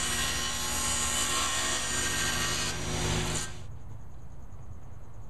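Table saw crosscutting a board guided by a miter gauge, the blade and motor running loud and steady. About three and a half seconds in, the cutting noise stops abruptly, leaving a quieter low hum.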